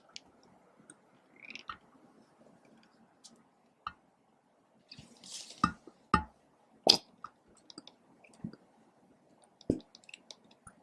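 Slime being handled and pressed, making scattered sticky clicks and squelches, with a few louder sharp clicks in the middle.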